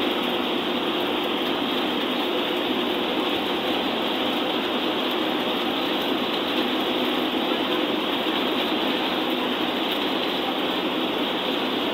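Steady in-cabin drone of a bus cruising at highway speed: engine hum under a constant rush of tyre and road noise.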